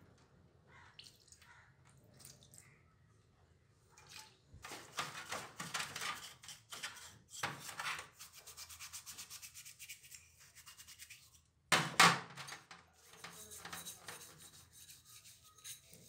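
Bristle brush scrubbing wet, dirty metal camera housing parts in a metal tray, in quick repeated scratchy strokes that start a few seconds in. A loud knock comes about twelve seconds in.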